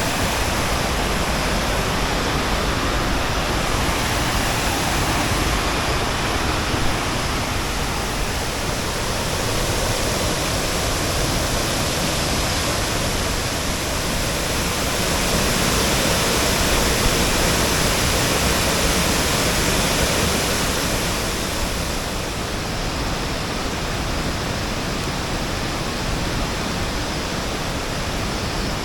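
Steady rushing of a waterfall, a continuous wash of falling water.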